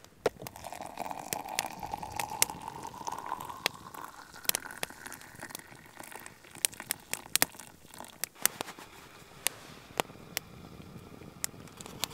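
Hot water poured from a camp pot into a coffee brewer, the pour's pitch rising steadily as the tube fills over the first four seconds or so. A small twig fire in a folding wood-burning stove crackles with sharp pops throughout.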